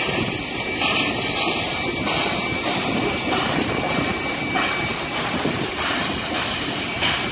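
Steam-hauled heritage passenger train moving past: a steady rumbling rush of the carriages rolling along the track as the steam locomotive draws level.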